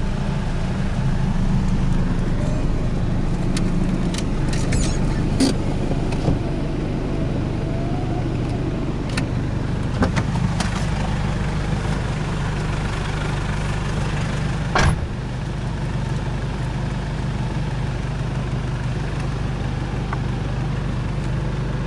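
Vehicle engine running steadily, heard from inside the cabin while driving an off-road track, with scattered knocks and rattles. One louder knock comes about 15 seconds in.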